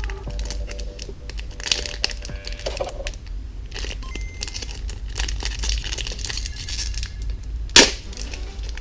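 Trading card pack wrapper crinkling and being torn open, with one sharp rip near the end, over a low steady hum.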